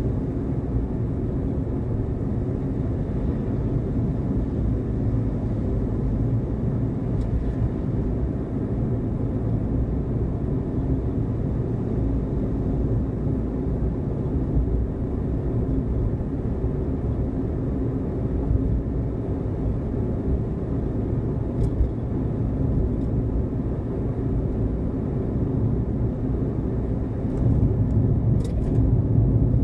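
Steady low rumble of a car driving, engine and road noise, growing a little louder near the end, with a few faint clicks.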